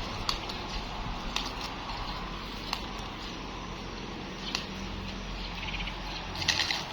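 Sukuma wiki (collard greens) leaves being snapped off the stalks by hand: scattered sharp snaps about once a second or so, with a louder burst of leaf rustling near the end.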